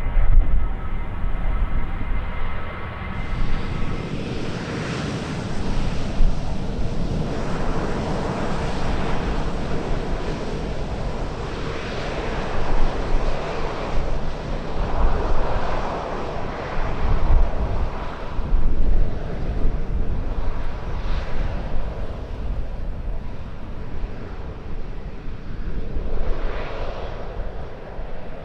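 Jet airliner engines making a loud rushing rumble that swells and fades in waves, with a thin steady whine over it in the first few seconds.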